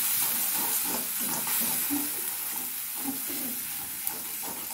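Tomato-and-spice masala sizzling in hot oil in a pan while a spatula stirs and scrapes it, being fried down (kosha).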